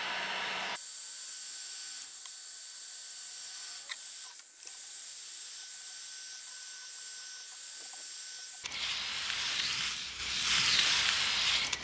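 Electric heat gun blowing hot air, a steady hiss with a faint high whine, softening old paint so it can be scraped off. The sound shifts abruptly about a second in, and near the end it turns into a louder, fuller rush.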